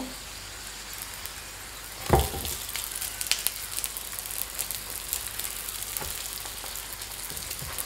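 Oil sizzling and crackling under potato-shred wraps frying on a griddle pan. A thump about two seconds in and a fainter one near six seconds come as the wraps are turned over with spatulas.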